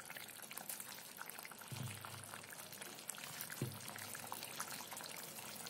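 Thick drumstick curry gravy bubbling at a simmer in a kadhai, with a fine crackle, while a spatula stirs it. Two soft low knocks come about two seconds and three and a half seconds in.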